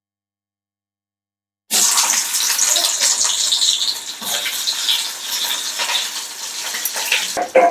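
Water running from a tap, starting abruptly about two seconds in and running steadily.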